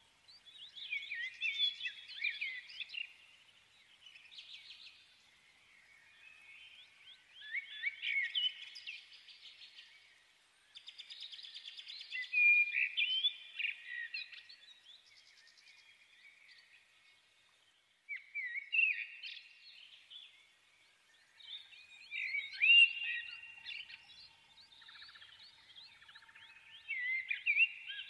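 Small birds chirping and singing in bursts of quick rising and falling notes, with short quieter gaps between the bursts.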